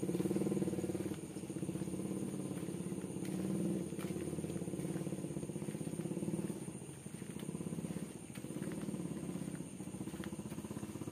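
Motorcycle engine running as it is ridden, its pitch and loudness rising and falling with the throttle, with a thin steady high tone above it.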